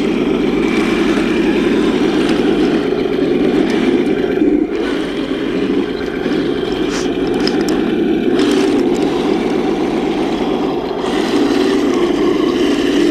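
Henglong RC M41 Walker Bulldog tank driving over rocky dirt, its onboard sound system playing a loud, steady simulated tank-engine rumble that dips briefly a little after a third of the way in.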